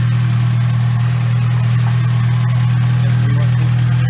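A Mitsubishi Lancer's four-cylinder engine idling steadily, a constant low hum.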